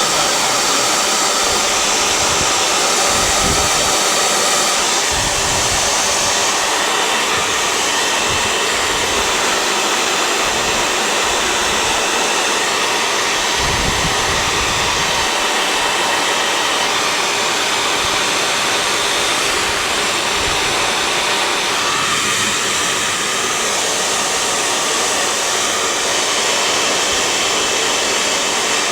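Hair dryer blowing steadily as hair is blow-dried into a style, with a few short low rumbles now and then.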